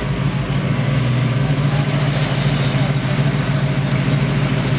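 Custom 1937 Ford coupe's engine running steadily at low speed as the car drives slowly past.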